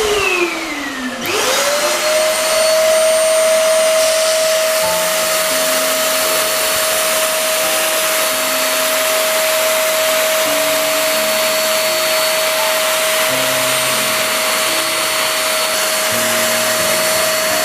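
Eureka Forbes Trendy Zip 1000 W canister vacuum cleaner running. Its pitch dips in the first second, then climbs and settles into a steady high whine over a rush of air.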